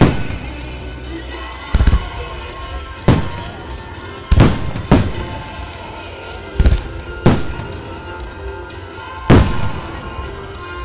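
Fireworks shells bursting, seven loud bangs at irregular gaps of roughly half a second to two seconds, each followed by a short fading echo, over background music.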